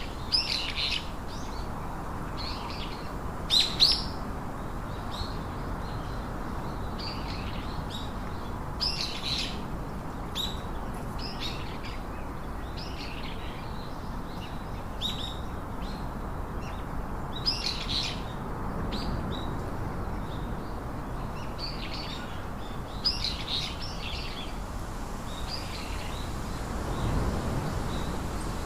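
Songbirds chirping: short, high calls scattered every second or two over a steady low background of outdoor ambience.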